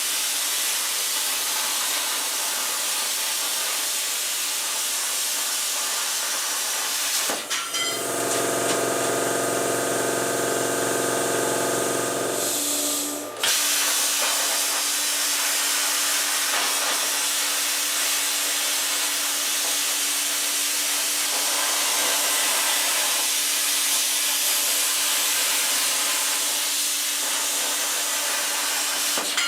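Steady hissing of a power tool cutting latch openings in tool-box door panels. About eight seconds in, a pitched hum joins it for a few seconds, then a steady low tone carries on beneath the hiss.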